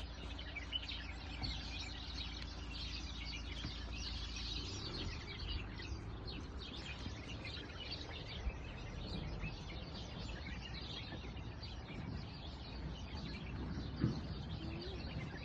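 A chorus of many small birds chirping at once, dense short high chirps overlapping throughout, over a steady low rumble. A brief thump stands out about fourteen seconds in.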